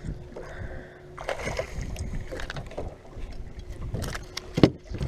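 Irregular knocks and rustles of handling on a fishing boat as a bass is landed and unhooked, with one sharp knock near the end, over a faint steady hum.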